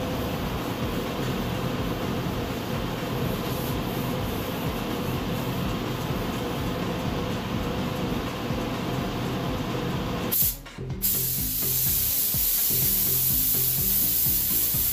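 Background music over a steady noise; about 11 s in, after a brief break, the even hiss of a gravity-feed paint spray gun spraying starts and continues, as reduced black is ghosted over a carbon-fiber-effect finish.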